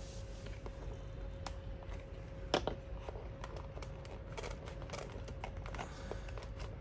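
Scattered small clicks and taps from hands working a refrigerator-board test kit's plugs and switches, with one louder click about two and a half seconds in and a quick run of clicks a little later. A faint steady hum underneath.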